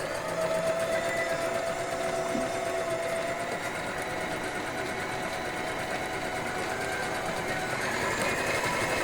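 Janome 7524A household sewing machine running steadily at speed, stitching without faults after repair.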